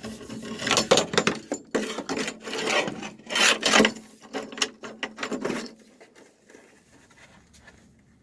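Rubbing, scraping and knocking from someone handling things inside a car's interior, busy for about six seconds and then dying away.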